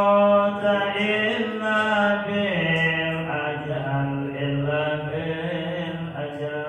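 A man chanting an Arabic devotional verse (nazam) solo into a microphone, in long held notes that slide and bend between pitches.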